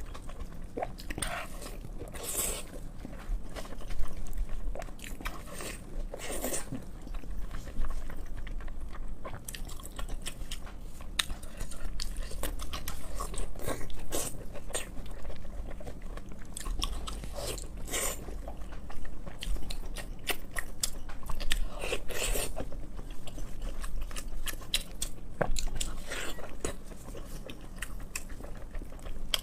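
A person eating close to the microphone: irregular biting and chewing of food, with wet mouth sounds and occasional louder crunchy bites.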